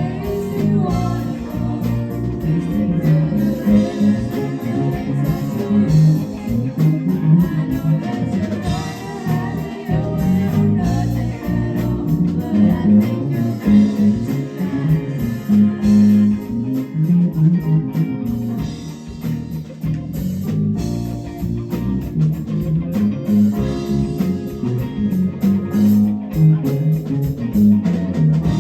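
A live band playing an instrumental passage with guitar and bass guitar.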